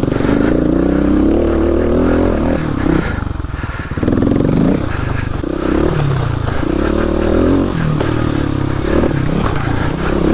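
Kawasaki KLX250S single-cylinder four-stroke engine, revved up and let back down again and again as the throttle is worked.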